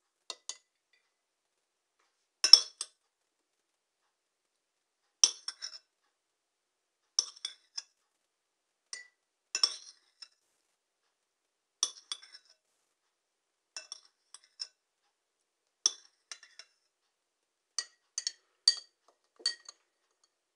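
Metal spoon clinking against a ceramic bowl and a glass jar while grapes are spooned into the jar: a sharp clink or a short cluster of clinks every couple of seconds.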